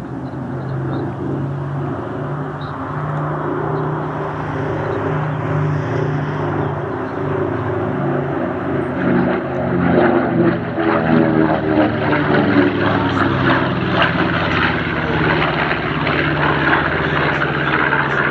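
B-25 Mitchell bomber flying past, its twin radial engines and propellers running with a steady drone. The sound swells and shifts in pitch about ten seconds in as the aircraft passes closest.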